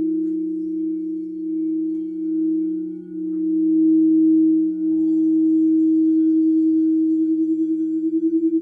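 Crystal singing bowls ringing in two long sustained tones, a louder higher note over a softer lower one. Near the end the sound takes on a fast wavering pulse.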